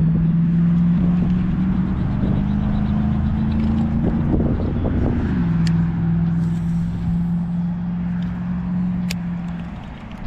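A motor vehicle's engine running steadily. Its pitch climbs slowly, drops suddenly about five seconds in, then holds before fading near the end. Two sharp ticks come about midway and near the end.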